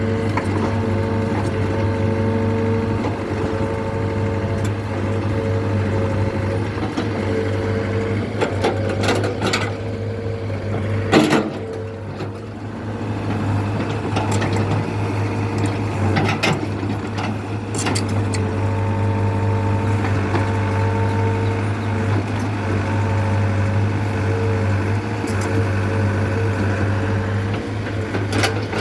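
Excavator's diesel engine running steadily, with a higher whine that comes and goes, and a few sharp knocks, the loudest about eleven seconds in.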